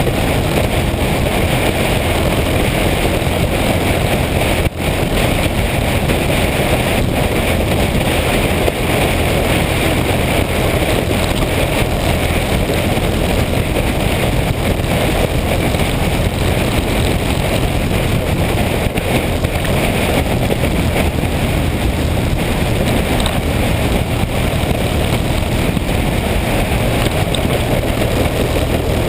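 Motorcycle engine running steadily at cruising speed, with heavy wind rush on the microphone while riding; the sound drops out briefly about five seconds in.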